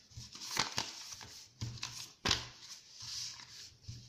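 Sheet of origami paper rustling as it is folded back and forth into fan pleats, with several short, sharp crinkles as the creases are pressed.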